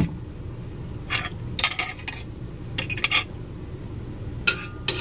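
A cooking utensil knocking and scraping in an empty cast iron skillet as olive oil is spread around the pan: a sharp click at the start, then a handful of short clinks and scrapes.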